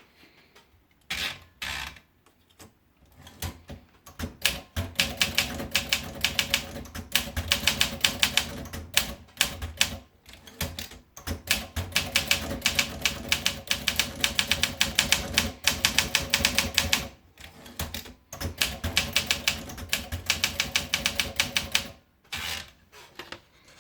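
Olympia SM7 portable manual typewriter being typed on: runs of rapid, sharp keystrokes with short pauses between them.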